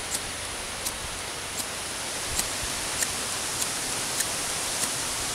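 Ferro rod being struck again and again, a short sharp scrape about every two-thirds of a second, in an attempt to throw sparks into tinder that will not catch. Under it runs a steady hiss of wind and outdoor noise.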